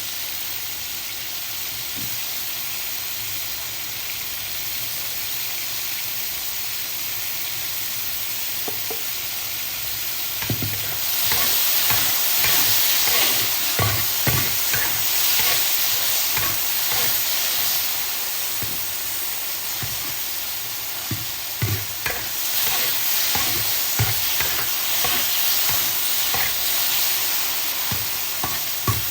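Food sizzling as it is stir-fried in a pan on a wood-fired stove, with the spatula knocking and scraping against the pan. The sizzle swells louder about eleven seconds in and again a little after twenty seconds.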